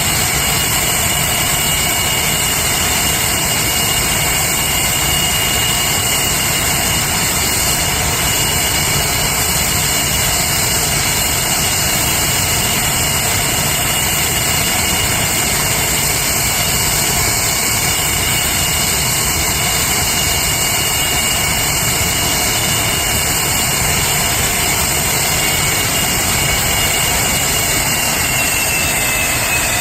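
English Electric Lightning's twin Rolls-Royce Avon turbojets running at low power, a steady rushing jet noise with a high turbine whine. The whine dips slightly in pitch near the end.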